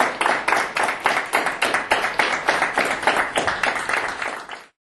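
Audience applauding with hand claps, cutting off suddenly near the end.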